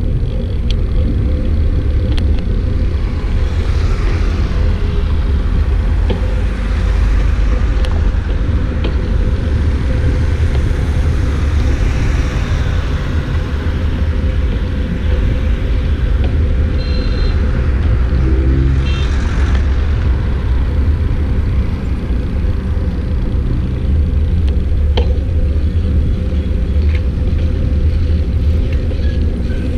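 Steady low rumble of wind and road noise while riding a bicycle in traffic, with passing vehicles swelling and fading several times.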